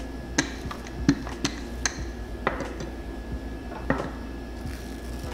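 Wooden rolling pin working dough on plastic wrap over a countertop: about six light, irregular knocks and clicks as the pin bumps and is shifted on the counter.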